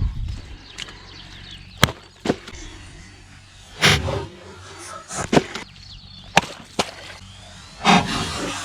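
Irregular sharp knocks and cracks from wood being cut and worked with a Victorinox Forester pocketknife, about eight in all, with a longer crackling one about four seconds in.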